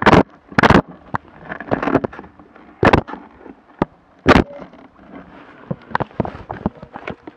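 Handling noise on an action camera's microphone: four loud sharp knocks in the first half, among smaller clicks and rustling, as the camera is moved about on the snowmobile.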